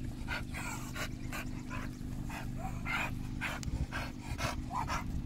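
American Staffordshire Terrier panting in quick, short breaths, about two to three a second.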